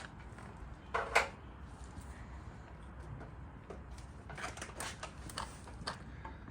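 Corner chisel squaring the rounded corners of a routed hinge mortise in a door edge: two sharp knocks about a second in, then scattered lighter clicks and taps.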